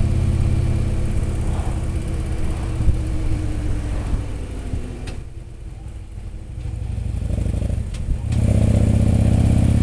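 Touring motorcycle engine running on the road. About five seconds in the engine note drops and goes quieter for roughly three seconds, then picks up again loud and steady.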